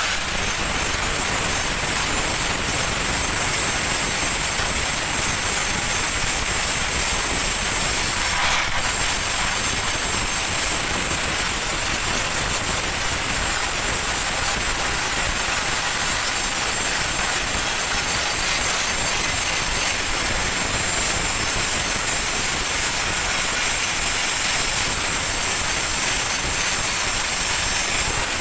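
Stick welding arc running a vertical bead: a steady, even hiss that holds unchanged throughout, with one brief click about eight seconds in.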